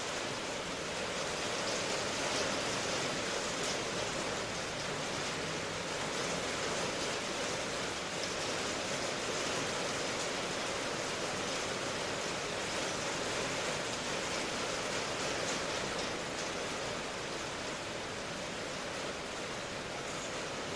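Steady rain, an even hiss of falling water with a faint fine patter in it and no change in strength.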